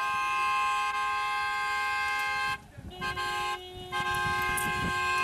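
Car horns honking in long, held blasts, breaking off briefly twice; a second, lower-pitched horn joins about three seconds in. This is the celebratory honking of a wedding car convoy.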